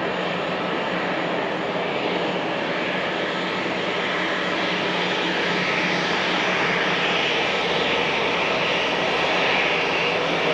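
Aircraft engines running as a steady rush of noise that slowly grows louder.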